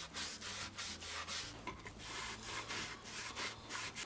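A cloth rag wiping polyurethane onto pine and plywood, in quick short back-and-forth strokes, about three a second.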